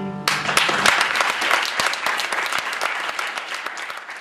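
An audience applauding, breaking out as the last guitar notes die away, then slowly fading down.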